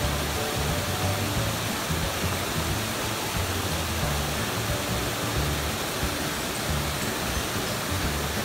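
Steady rush of flowing creek water, with background music carrying a low bass line underneath.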